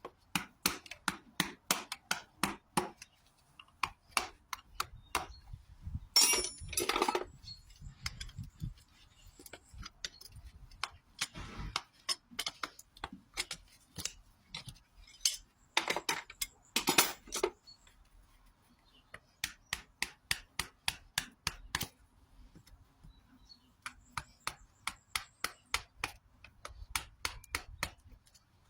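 Farrier's tools working on a horse's hoof: long runs of sharp clicks and taps, about three or four a second, broken twice by a longer scraping stroke.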